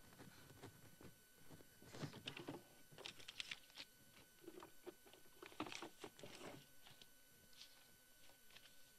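Faint, scattered rustling and light knocks of someone rummaging in a small wooden cabinet and handling cloth, coming in a few short clusters.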